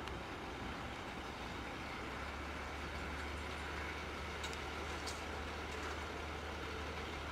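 Diesel engine of a small rail draisine running at low revs, a steady low hum that grows a little stronger about two seconds in, with a couple of faint clicks near the middle.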